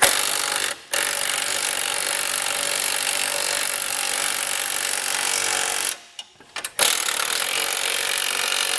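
Cordless impact wrench run in three goes, a short burst, one of about five seconds, then another starting near the end, snugging up the side bolts of a tow-bar base plate.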